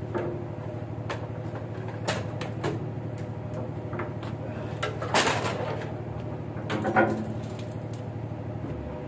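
A boat's engine runs steadily with a low pulsing hum. Over it come scattered knocks and clatters of fishing gear being handled on the deck during a strike. The loudest is a rough clatter about five seconds in, and there is another sharp knock near seven seconds.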